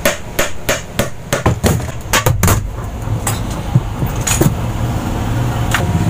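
Hammering on a long steel rod set against a washing machine's gearcase to drive it out of the tub: about a dozen quick metallic knocks in the first two and a half seconds, then a few spaced single knocks.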